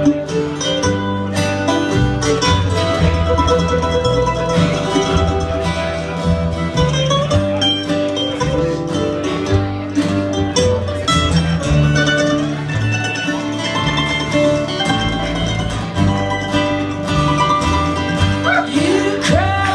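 Live acoustic roots band playing an instrumental passage: picked and strummed acoustic guitars over a plucked upright bass line.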